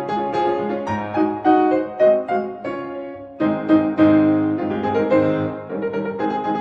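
Background piano music, gentle notes and chords.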